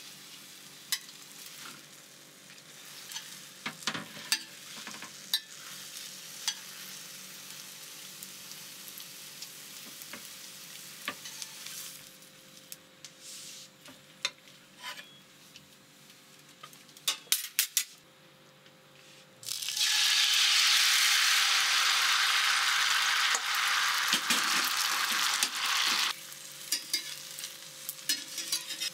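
Metal spatula and spoon clinking and scraping against a stainless steel frying pan over a faint sizzle of frying egg. About two-thirds of the way through, a loud sizzling hiss starts suddenly, runs about six seconds and cuts off.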